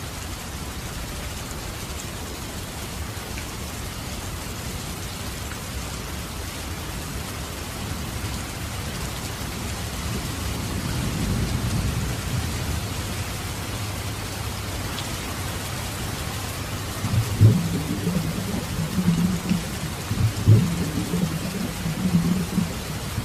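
Heavy rain pouring onto a street and pavement, a dense steady hiss. About halfway a low rumble swells as a vehicle passes, and in the last third several low, uneven rumbling bursts break through the rain.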